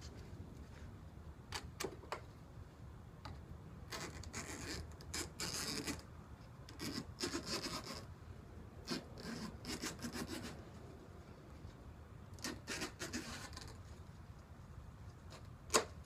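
Razor knife scraping and cutting along wire mesh screen to trim off the excess, in several separate strokes, with one sharp click near the end.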